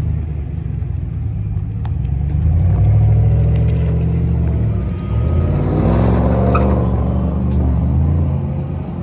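Exhaust of a 2020 Chevy Silverado's 6.2-litre V8 with the muffler deleted and the resonators left in, as the truck drives away from a stop. It swells about three seconds in, rises in pitch again as it accelerates a little past the middle, and eases off near the end.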